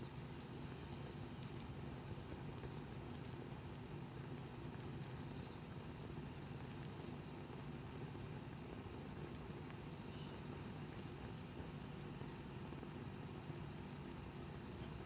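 A singing insect calling in a repeated phrase: a row of quick high ticks, then a steady high buzz lasting about a second and a half, every three seconds or so. Beneath it runs a faint, steady low hum.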